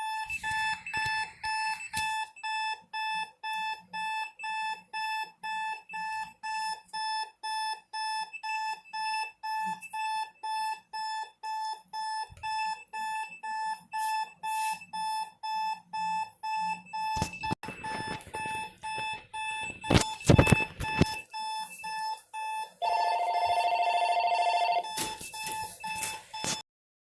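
Electronic alarm clock beeping in rapid, evenly spaced pulses. Partway through come several loud knocks and clatter, then near the end a louder, steadier warbling buzz lasts about two seconds before everything cuts off suddenly.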